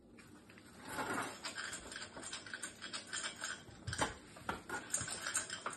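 Dog nosing at a metal muffin-tin puzzle whose compartments are covered with toys and paper: irregular clicks, knocks and scrapes of the tin and its covers against the tile floor, starting about a second in, with the sharpest knock about 4 s in.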